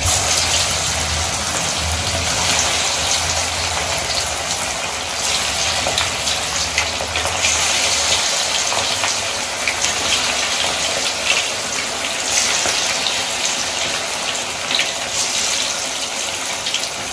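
Marinated chicken kabab pieces deep-frying in hot oil: a steady sizzle with small crackles throughout.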